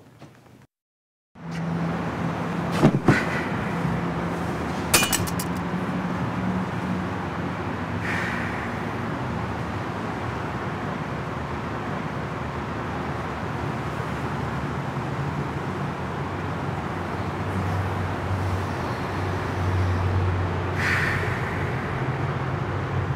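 Steady rushing background noise with a low hum, cutting in abruptly about a second and a half in, with a few sharp clicks around three and five seconds in.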